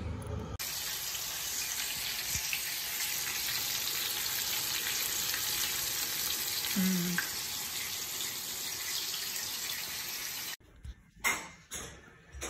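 Breaded chicken tenders frying in shallow oil in a cast iron skillet: a steady crackling sizzle. It cuts off abruptly about ten seconds in, followed by a couple of sharp knocks.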